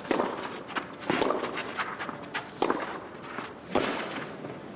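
Tennis ball struck back and forth with rackets in a rally on a clay court: four sharp hits about a second or more apart, with shoes scuffing on the clay between them.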